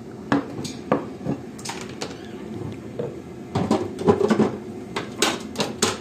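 Scattered plastic clicks and knocks from a small electric grinder being handled, with a busier clatter a little past the middle and a few sharp clicks near the end.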